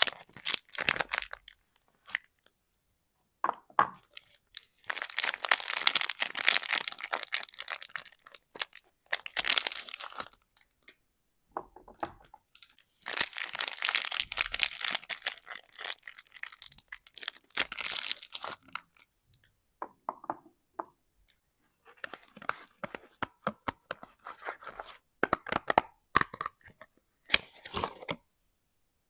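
Soap bar wrappers being torn and crinkled open by hand, in several bursts separated by short silences.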